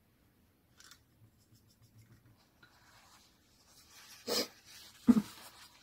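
Faint scratchy strokes of a paintbrush on an acrylic-painted hardboard panel, then two louder short knocks about four and five seconds in.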